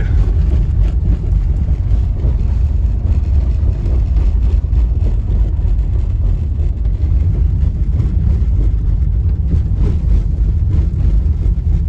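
Subaru Forester SG5 driving, with a steady low road rumble and light knocks scattered through it from the front suspension over small bumps: the knock the owner is still trying to trace.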